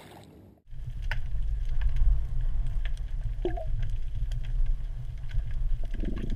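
Underwater sound picked up by a GoPro camera in its waterproof housing: a dull, heavy low rumble of water against the housing with scattered faint clicks. It starts abruptly just over half a second in and cuts off abruptly at the end.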